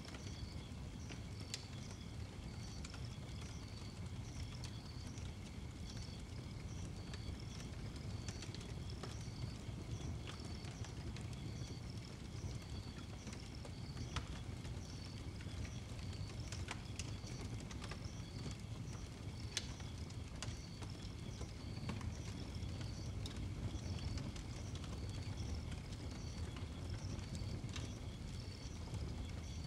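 Fire burning in a steel fire barrel built as a roadster, a steady low rumble with scattered sharp crackles and pops. Faint high chirps repeat evenly in the background.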